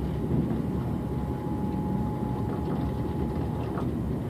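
ICE high-speed train running at speed, heard from inside the passenger car: a steady low rumble, with a thin steady whine over it that stops near the end.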